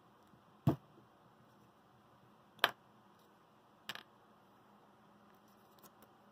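Faint steady room hiss broken by a few short, sharp clicks or knocks: two louder single ones about two seconds apart, then a quick double click, then a couple of faint ticks near the end.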